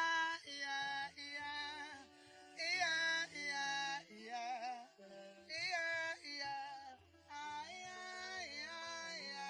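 Gospel song with male and female singing over instrumental backing, sung in held, bending phrases of a second or two.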